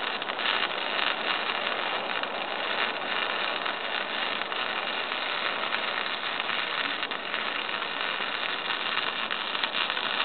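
Lincoln wire-feed welder's arc crackling and hissing steadily through one continuous weld bead.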